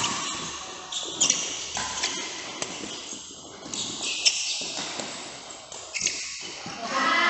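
Badminton play in a sports hall: a string of sharp racket hits on the shuttlecock and shoe sounds on the court floor, echoing, roughly one hit a second.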